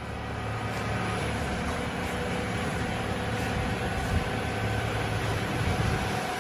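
Heavy forestry machine running steadily under power, with a faint steady whine over the engine noise.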